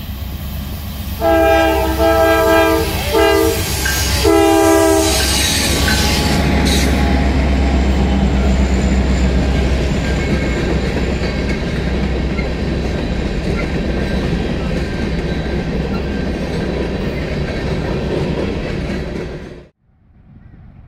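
Freight train's locomotive air horn sounding a chord in three blasts, the first the longest, followed by the steady rumble and clatter of the diesel locomotive and freight cars passing. The sound cuts off suddenly near the end, and another horn chord starts just as it ends.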